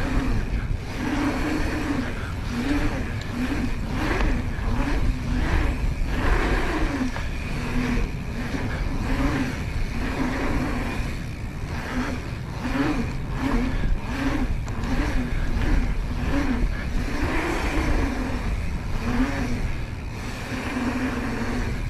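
Mountain bike tyres humming on a paved pump track, the hum rising and falling in pitch about once a second as the bike speeds up and slows over the rollers, over a steady low rumble, with scattered clicks.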